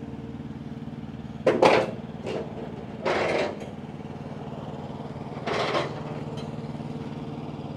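Delivery truck's engine idling with a steady hum, with a few brief louder rushes of noise over it about one and a half, three and five and a half seconds in.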